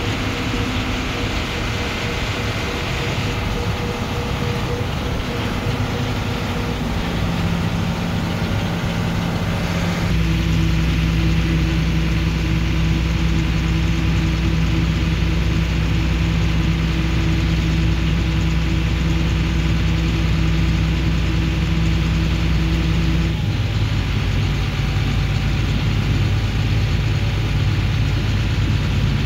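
Diesel engines of a John Deere tractor and combine running steadily under load during grain carting, as the combine unloads corn into the grain cart. The engine drone shifts in pitch a few times and grows louder about ten seconds in.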